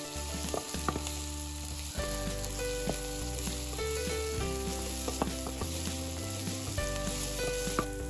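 Chopped onion, garlic and green garlic frying in oil in a pan, with a steady sizzle and scattered clicks of a spoon stirring them.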